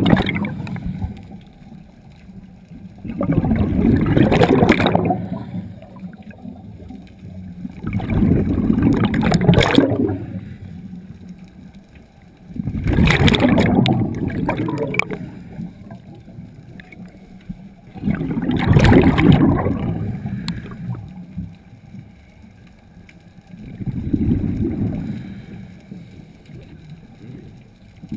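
Scuba regulator exhaust: a diver's exhaled breath bubbling out in rumbling bursts, each lasting about two seconds, about every five seconds in a steady breathing rhythm, with quieter gaps during each inhale.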